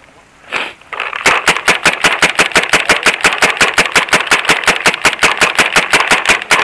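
Paintball marker firing in rapid semi- or fully automatic rhythm, about eight sharp pops a second, starting about a second in and held as a long unbroken string.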